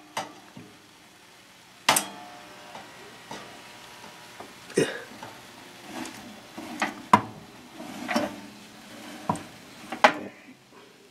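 Tongs knocking and clinking against a metal baking tray and wire toaster-oven rack as sweet potatoes are turned over, a string of separate sharp knocks, with a louder clank near the end as the rack goes back into the oven.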